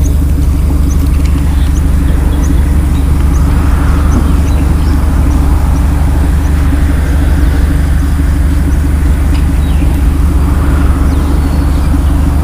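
A motor running steadily with a loud, unchanging low hum.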